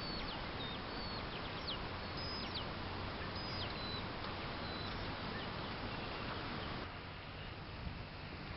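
Small birds chirping in quick short high notes, some sliding sharply down, over a steady hiss of open-air background noise; the chirps thin out after about four seconds. About seven seconds in, the background abruptly drops quieter and a low steady hum comes in.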